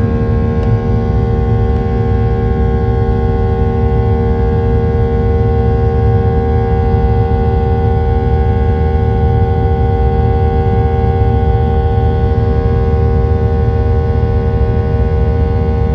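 Boeing 737-800's CFM56-7B turbofan engines at climb power, heard inside the cabin over the wing after takeoff: a steady, loud drone with a low rumble and several held tones, the strongest a hum.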